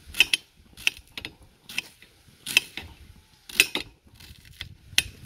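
A dull kitchen knife sawing through an onion on a ceramic plate, its blade striking the plate with a sharp click about once a second, with light scraping in between.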